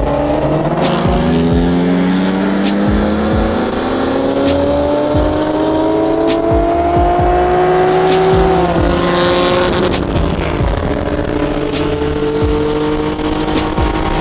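Sports car engine accelerating hard, its pitch climbing steadily for about eight seconds, dropping sharply at an upshift, then climbing again in the next gear. Wind buffets the microphone underneath.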